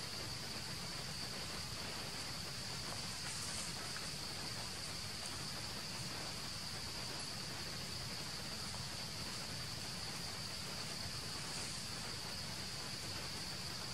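Steady insect chorus, one high even note held throughout, over a soft outdoor hiss.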